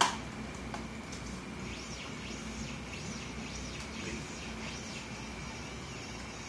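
Stepper motors on a pick-and-place machine's nozzle assembly running a circle pattern, their whine rising and falling in pitch roughly twice a second. A sharp click sounds at the very start.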